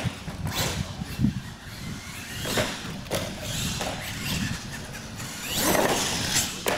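Radio-controlled monster truck driving hard on a concrete floor: its motor whines, rising in pitch as it speeds up twice, with a few sharp knocks from the truck striking wooden ramps and landing.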